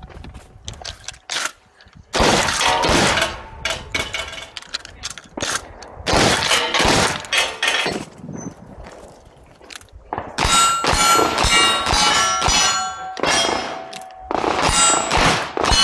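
Chiappa Winchester 1887 12-gauge lever-action shotgun blasts at steel targets in the first half. From about ten seconds in comes a fast string of Ruger Vaquero single-action revolver shots, each followed by the ring of a hit steel plate.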